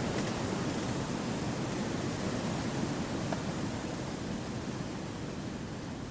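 Wind blowing through forest trees: a steady, deep rushing with no distinct events, easing slightly near the end.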